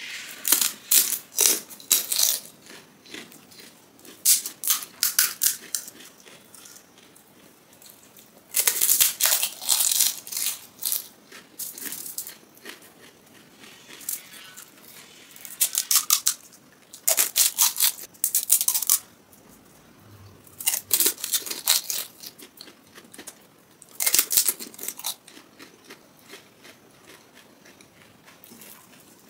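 Crisp, hollow panipuri (golgappa) shells crunching in the mouth as they are chewed, in repeated bursts of sharp crackling with short pauses between.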